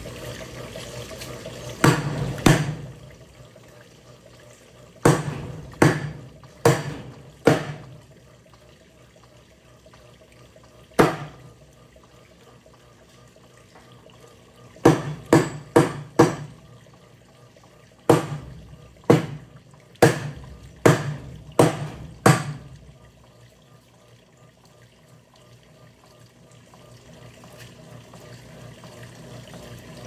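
Electrolux LAC09 top-load washing machine with water running and sloshing in its tub, broken by a string of sharp, irregular knocks, some in quick runs of three or four. The water sound eases off in the middle and builds again near the end.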